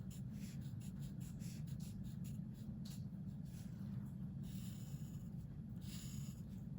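Drawing strokes on paper, a run of short scratchy strokes with brief pauses between them, over a steady low hum.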